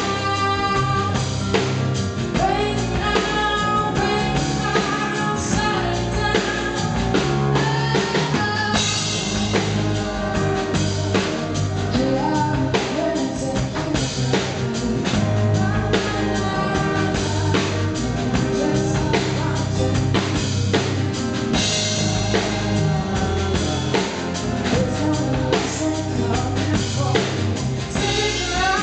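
Live band music: a woman sings a melodic lead vocal into a microphone over a drum kit and band accompaniment.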